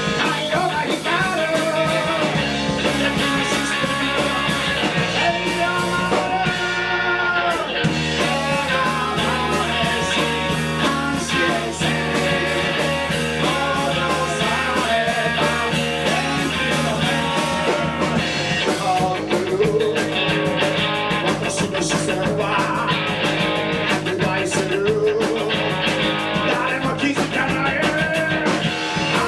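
Live rock band playing loud and steady: distorted electric guitars through Marshall amplifiers over drums and a bass line, with singing.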